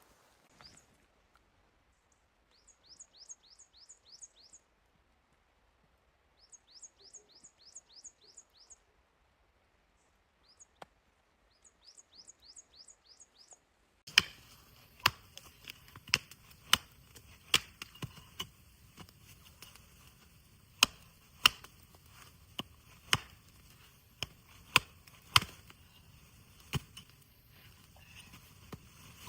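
Three short series of quick, high repeated chirps. Then, after a sudden change, irregular sharp snaps and cracks over a steady hiss.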